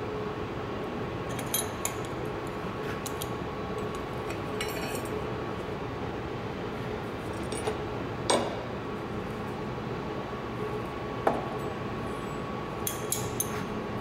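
Scattered sharp metallic clinks and taps of tongs and a metal pipe being picked up and set down on a firebrick brazing bench, over a steady workshop hum. The loudest clinks come about eight and eleven seconds in, with a quick run of small taps near the end.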